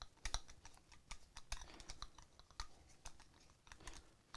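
Screwdriver winding the pistol-grip screw into an AR lower receiver: faint, irregular small clicks and taps as the tool turns and knocks against the polymer grip and metal receiver.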